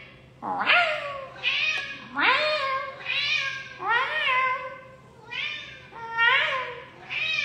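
Domestic cat meowing over and over, about once a second, each meow rising and then falling in pitch.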